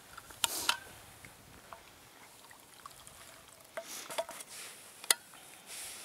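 A thermos and its cup handled while a hot drink is poured: a few sharp clicks and knocks of the flask, cap and cup, the loudest one about five seconds in.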